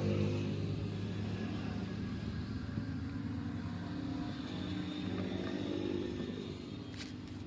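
A motor vehicle engine running, its pitch rising and falling, easing off near the end.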